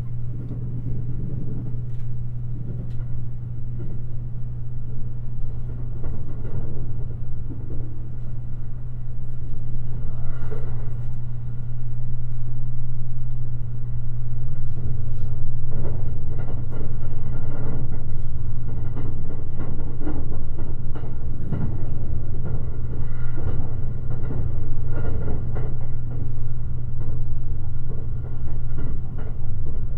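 Electric limited express train running along the line, heard from inside the car: a steady low hum over a rumble of wheels on rail, with scattered clatter. It grows louder about twelve seconds in.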